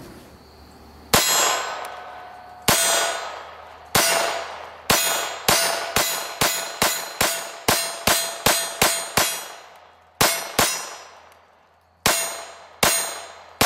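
An IWI/Umarex UZI .22LR semi-auto pistol firing about eighteen shots, each followed by a metallic ring from steel targets being hit. Two slow shots open the string, then about ten come quickly, roughly two to three a second, and the last few are paced further apart as the 20-round magazine runs down.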